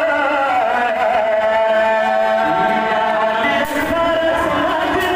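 A male voice chanting a Pashto mourning verse (rubai) in long, held, wavering melodic lines. A few sharp hits come near the end.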